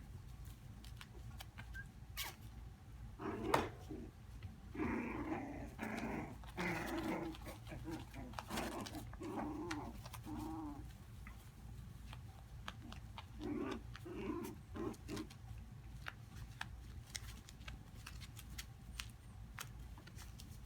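Havanese puppies growling in short bursts as they play-wrestle, in two stretches about three seconds in and again near the middle. Small clicks run throughout.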